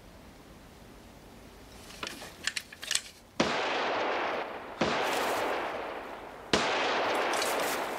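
Three pistol shots about a second and a half apart, each a sharp crack followed by a long, loud noisy tail that slowly fades; a few light clicks just before the first shot.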